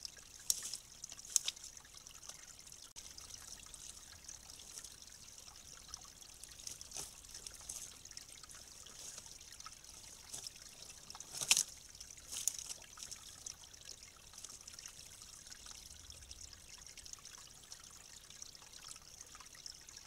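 Faint trickle of water through a leaking beaver dam, with scattered soft clicks and rustles of the beaver working sticks, and one sharper snap a little past halfway.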